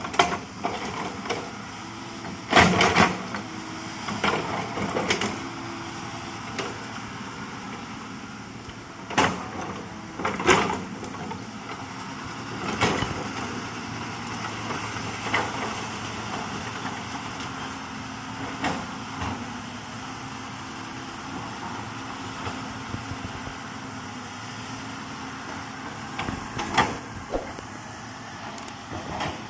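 Komatsu hydraulic excavator running steadily at work, with sudden knocks and clanks at irregular intervals, several in the first dozen seconds and one more near the end.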